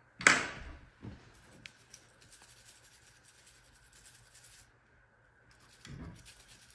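A sharp knock just after the start and a smaller one about a second in, then light scratching and rubbing as the Winchester SX4 shotgun's parts are scrubbed by hand.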